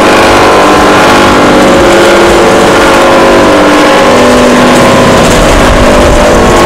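Stainless-steel rotary dryer running: the drum turning on its rollers with its chain drive and blower burner, a loud, steady, very noisy machine sound with a constant multi-tone whine.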